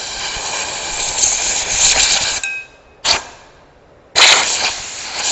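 Compressed-air blow gun blasting air into an automatic-transmission clutch drum and piston, blowing out the oil and dirt left behind the seals. A long hiss of air cuts off about two and a half seconds in, a short puff follows half a second later, then another blast starts about four seconds in.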